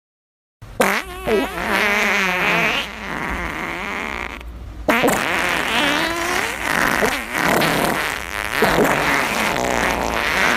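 A long, drawn-out fart sound effect with a wavering, bending pitch. It starts suddenly about half a second in, sags quieter for a couple of seconds in the middle, then sets off loud again.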